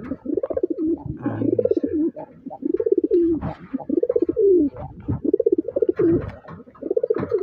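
A domestic pigeon sitting on its nest coos repeatedly as a hand reaches under it, in a string of rising-and-falling coos about one a second. Light clicks and rustles come between the coos.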